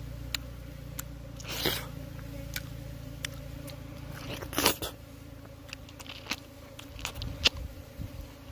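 Woven plastic sack crinkling and rustling as slabs of wild honeybee comb are handled and laid on it, with a few short crunches and clicks; the loudest burst comes about halfway through.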